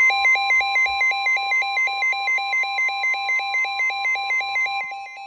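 Electronic emergency-alert tones: a steady single-pitch attention tone sounds together with a fast two-pitch warble that cycles about four times a second. Near the end the sound drops in level, and the steady tone fades while the warble continues.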